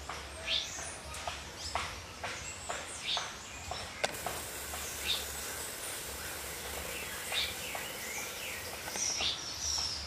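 Forest ambience: many short bird chirps and calls, some gliding up or down in pitch, scattered through, over a low steady hum. An even high hiss fills in from about four to nine seconds in.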